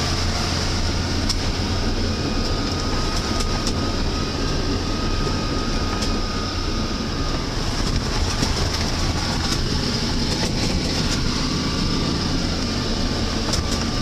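Cabin noise of a car driving across lake ice: a steady engine drone and tyre noise, with scattered rattles and knocks from the body.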